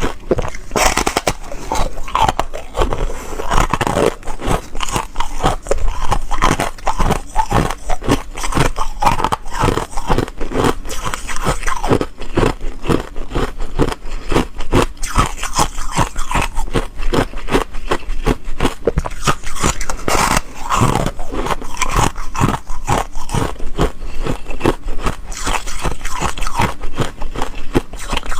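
Close-miked biting and chewing of soft foam ice: dense, crackly crunches that follow one another rapidly and irregularly throughout.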